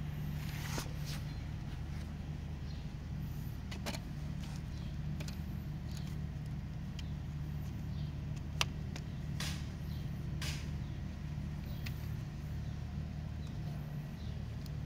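Steady low engine hum from an unseen running motor, with scattered light clicks and taps and one sharp click about eight and a half seconds in.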